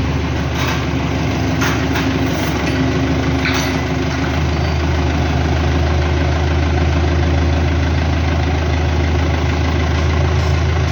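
Farm tractor's diesel engine running close by, a steady low drone that grows stronger about four seconds in, with a few sharp clicks in the first seconds.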